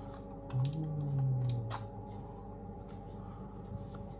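A man's short, low, wordless hum lasting about a second and a half, slightly falling in pitch, over a few faint clicks of a jar lid of hair wax being twisted and opened.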